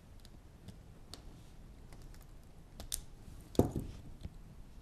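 Small plastic parts clicking and rattling as a VEX 2x6 plastic beam is pressed onto plastic connectors on the chassis, with one loud snap about three and a half seconds in as the beam seats.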